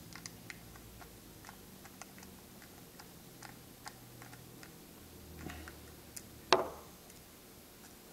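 Faint, irregular small ticks and clicks of a Torx (star) screwdriver working a mounting screw out of the side of a laptop hard drive, with one louder click about six and a half seconds in.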